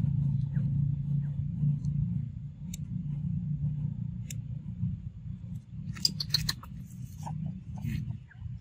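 A steady low rumble like a distant motor, with a few sharp clicks and a quick run of clicking and rustling about six seconds in.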